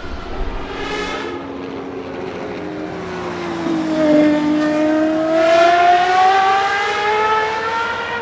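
Gordon Murray T.50's naturally aspirated Cosworth 3.9-litre V12 accelerating on track. Its note sags slightly, then climbs steadily as the revs rise, and it is loudest about halfway through.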